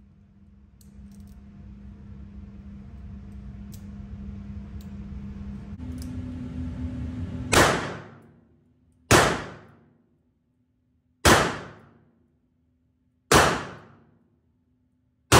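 EAA Windicator .357 Magnum revolver firing a slow string of single shots, one every one and a half to two seconds, starting about halfway through. Each shot is a sharp crack with a brief ringing tail.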